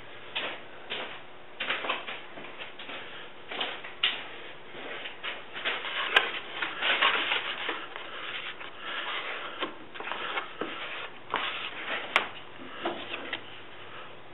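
A wooden stir stick scraping and stirring thick tooling gelcoat with hardener against cardboard, in short irregular strokes. Two brief sharp clicks, about six and twelve seconds in.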